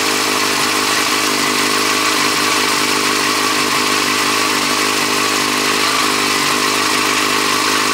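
A 2008 Yamaha FZ6S Fazer's 600 cc inline-four engine idling steadily, freshly refilled with oil, with oil pressure up.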